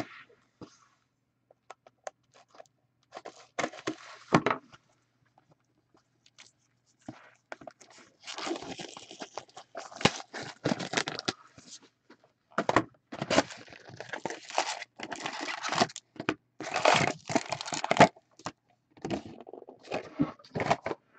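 2015-16 SP Authentic hockey card packaging being torn open and handled: wrappers tearing and crinkling in irregular bursts, busiest in the middle stretch, with short quiet gaps between.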